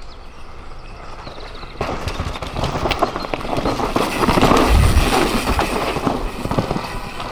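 Mountain bike passing close on a rough trail: tyres crunching and clattering over rocks and gravel. It grows louder to a peak about five seconds in, then fades.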